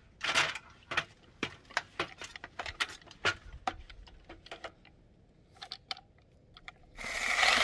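Light metallic clicks and clatters of a ladder being set up and climbed, thick over the first few seconds and then thinning out, followed near the end by a short burst of harsh noise.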